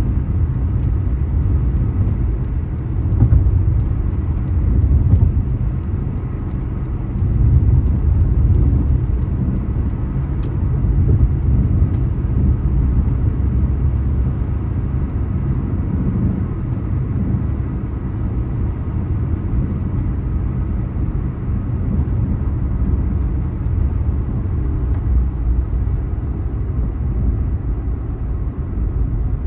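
Steady low road rumble of a car driving at speed, heard from inside the cabin: tyre and engine noise, swelling slightly now and then.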